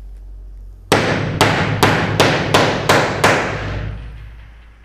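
A steel-headed hammer strikes a manual installation tool seven times in quick succession, about three blows a second, driving a threaded Clinsert insert in by hand. The last blow rings out and fades.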